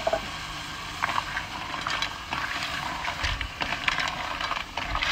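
Coconut milk going into a hot cast iron pan of mussels, the liquid sizzling and bubbling, with scattered irregular clicks.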